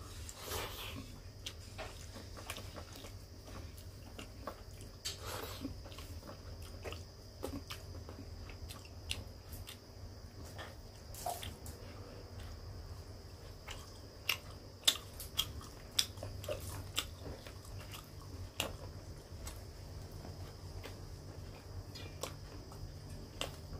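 Close-up mouth sounds of a person chewing rice and fried fish-roe fritters eaten by hand, with many short, crisp clicks and smacks scattered irregularly throughout, over a steady low hum.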